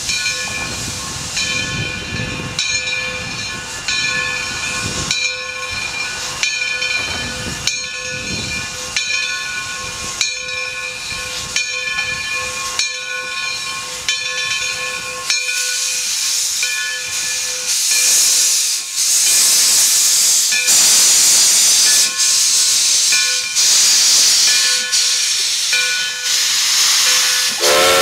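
Steam locomotive working past with its train: regular exhaust chuffs under steady hissing steam. The hiss grows much louder in the second half as the engine comes close.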